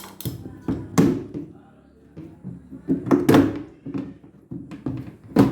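A series of knocks and thuds from something being handled, with the loudest about a second in and a cluster around three seconds in.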